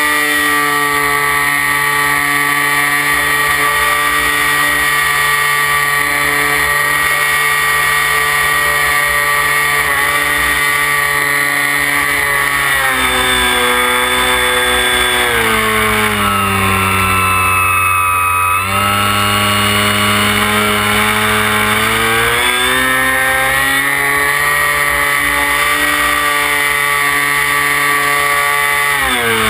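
Electric motor of a radio-controlled F-15 model jet, heard from the onboard camera as a steady whine of several tones over rushing air. About halfway through the pitch falls over several seconds as the throttle comes back, then jumps up again, climbs once more a few seconds later, and drops near the end.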